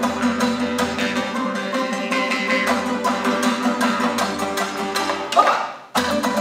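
Traditional Kazakh folk music: rapid plucked strings from dombra lutes and a zhetigen table zither over a steady low drone. About a second before the end, a rising swoop is followed by a brief break before the playing resumes.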